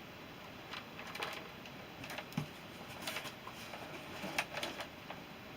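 Faint, scattered clicks and rustles of a package and its contents being handled and opened by hand.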